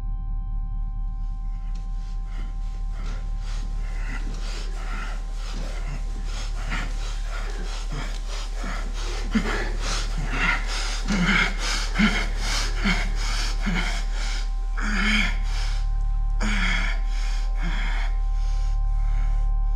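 A woman's rhythmic heavy breathing and gasps, with short voiced moans in the middle, over a sustained low musical drone.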